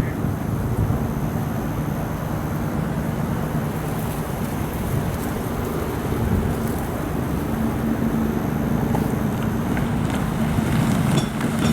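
Road traffic: a steady rumble of vehicle engines and tyres, with a low engine hum coming in about halfway through.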